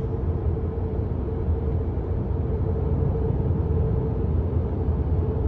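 Steady road and engine noise heard inside a moving car's cabin while driving through a tunnel: a low, even rumble with a faint steady hum.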